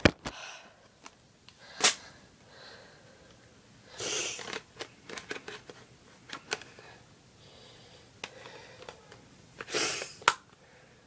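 Handling noise: sharp clicks and taps scattered through, with two short breathy, rustling hisses at about four seconds and near the end.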